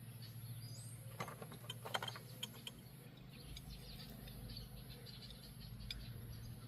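Faint, scattered light clicks and taps of steel target parts being handled during assembly, clustered between about one and two and a half seconds in, over a low steady hum.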